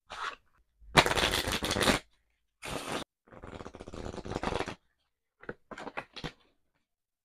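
A new deck of Samurai Otter playing cards riffled with the thumb: a loud fast flutter of card edges about a second in, a short burst, then a softer rattle through the deck, followed by a few short card snaps near the end.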